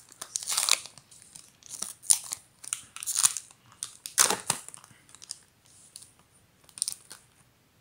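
Foil trading-card pack wrapper being torn open and crinkled by hand, in irregular crackling bursts that fade away over the last few seconds.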